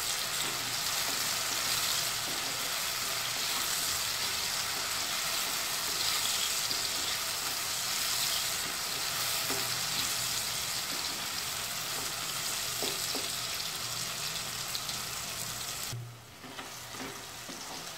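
Chopped onions and tomatoes sizzling in hot oil in a kadhai, stirred with a wooden spatula, the salted tomatoes softening as they fry. The sizzle drops quieter about sixteen seconds in.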